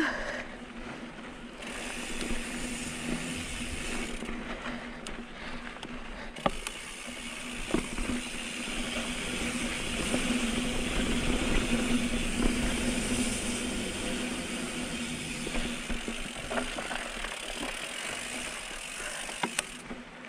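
Mountain bike rolling down a rough dirt and rock trail: tyres running over the ground, the bike rattling, with sharp knocks over bumps and a steady low buzz throughout. It gets louder for a few seconds around the middle.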